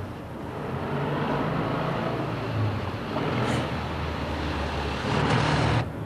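Road traffic: a motor vehicle running close by, a steady low hum and rumble that swells after about a second and cuts off suddenly near the end.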